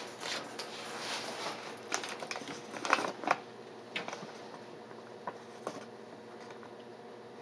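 Soft rustling and handling noise in a small room, with a few light clicks and knocks; the loudest come in a cluster about two to three seconds in, and a few fainter ones follow.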